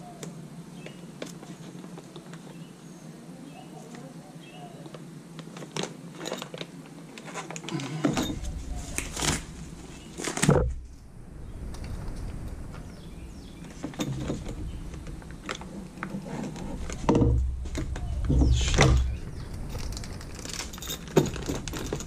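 Small plastic bags of metal battery-cable lugs crinkling and rustling as they are handled and opened, with the lugs clicking against each other. A few louder thumps come in the second half.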